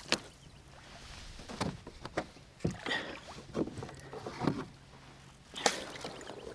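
Scattered knocks and thuds, about seven in all, of gear being handled in a plastic fishing kayak as the measuring board is picked up. The loudest knock comes near the end.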